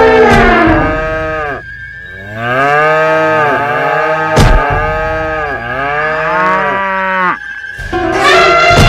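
Cattle mooing: a run of long, drawn-out moos one after another, with two short pauses. A single sharp knock comes about four and a half seconds in.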